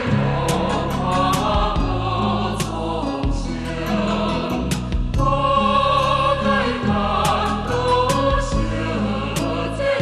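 Closing theme music: a choir singing long held notes over a changing bass line.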